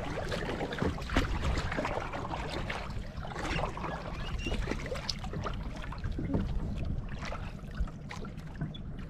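Sea water sloshing and splashing against the side of a small outrigger boat in short irregular slaps, over a steady low rumble.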